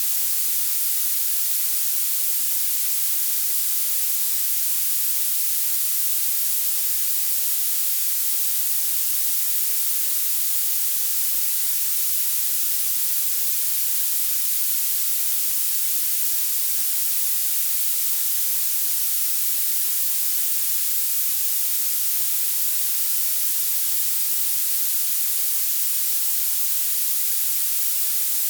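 Synthetic violet noise: a steady, unchanging hiss weighted heavily toward the highest frequencies, with almost no low end.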